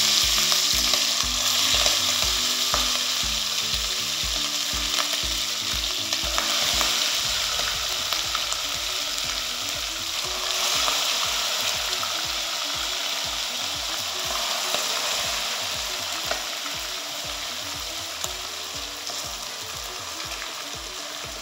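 Chicken pieces deep-frying in hot oil in a stainless steel pot, a dense sizzle that flares as more pieces go in and slowly grows fainter toward the end. A low, steady beat runs underneath.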